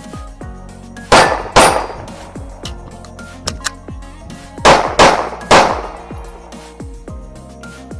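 Five pistol shots from a compensated Springfield Echelon: two about half a second apart a second in, then three in quick succession around the middle. Background music plays underneath.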